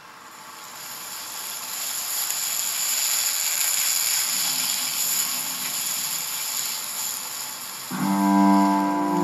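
Ambient sound-design backing track. A high, even hiss swells in over the first couple of seconds and holds steady. Near the end a sustained chord of held low notes enters.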